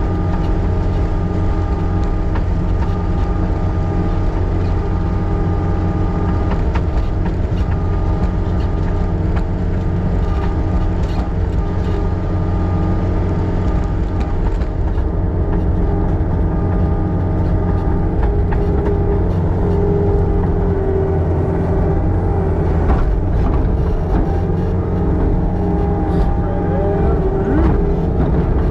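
Engine of a farm machine running steadily at a constant speed.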